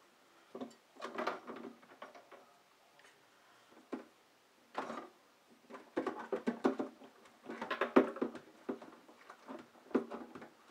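Dishes and a pan being scrubbed and handled in a kitchen sink: irregular clatters, knocks and scrapes, busiest in the second half.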